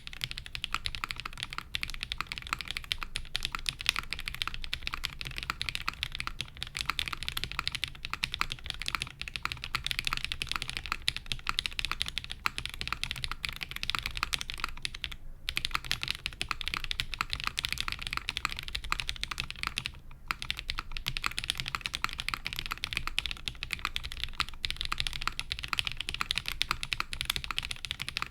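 Custom Prophet mechanical keyboard with lubed Cobalt POM linear switches on a half polypropylene plate and GMK Rudy keycaps, being typed on quickly and continuously: a dense stream of keystroke clacks, with a brief pause about halfway through.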